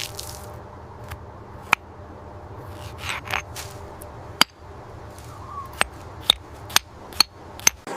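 A series of sharp, irregularly spaced clicks and taps, about seven in all, over a low steady hum, with a brief scraping rustle about three seconds in.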